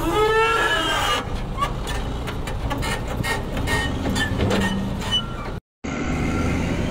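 Wheel loader's diesel engine running under load, with a whine that bends up and down in pitch in the first second as the bucket lifts, then a rapid, uneven run of knocks as dirt and rocks spill from the bucket into the steel bed of a Foton Auman dump truck. The sound drops out for a moment near the end.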